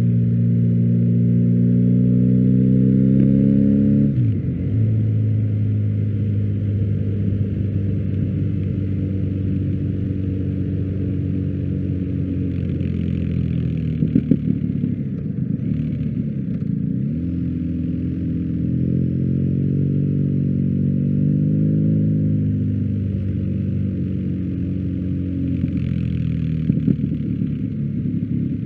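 BMW R1250GS boxer twin running through an Akrapovic exhaust, the revs climbing over the first few seconds, then dropping sharply and later rising and falling again. There are a few sharp crackles around the middle and near the end.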